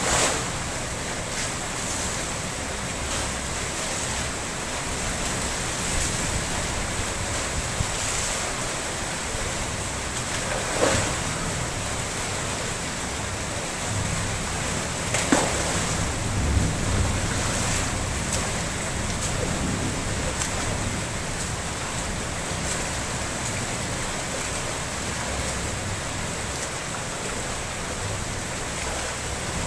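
Steady hiss of rain with water splashing as a person runs, wades and crawls through shallow rainwater pooled on a flat concrete roof. A big splash comes at the very start, and a few more sharp splashes come about a third and about halfway through.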